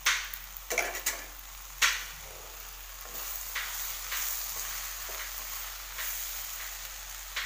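Brinjal, onions and freshly added tomato slices frying in hot oil in a clay kadai while a ladle stirs them. A few sharp knocks come in the first two seconds, then a steady sizzle builds from about three seconds in.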